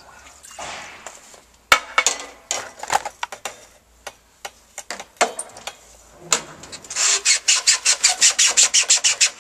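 A wetted glass evacuated tube being pushed and twisted up into the solar collector's silicone manifold gasket: scattered knocks and clicks of glass against the fittings, then a quick run of rubbing strokes near the end as the tube is worked into the seal.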